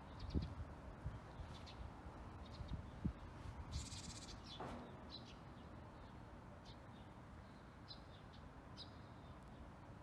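Faint outdoor ambience of small birds chirping here and there, with a brief high buzzing trill about four seconds in. A few low thumps sound near the start and about three seconds in.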